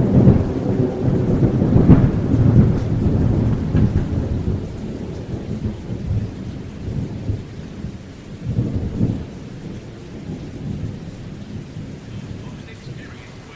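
Thunder rumbling over rain, loudest at the start, swelling again about two seconds in and once more later on, then fading away toward the end.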